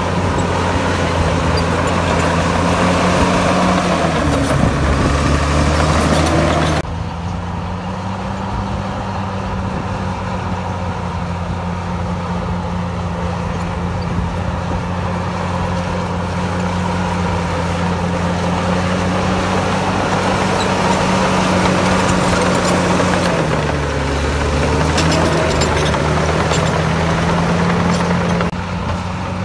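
Heavy diesel engine of earthmoving machinery running loudly and steadily. Its pitch sags and recovers twice, a few seconds in and again about three-quarters through. The level drops suddenly about seven seconds in.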